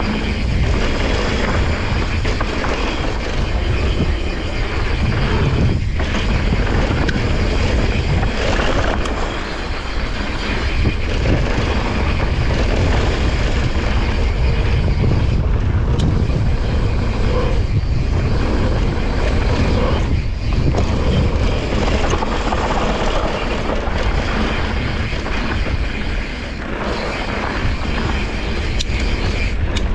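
Santa Cruz Nomad full-suspension mountain bike descending a packed-dirt trail at speed: wind rushing over the action camera's microphone and knobby tyres rumbling on the dirt, a loud steady rush that dips briefly a few times.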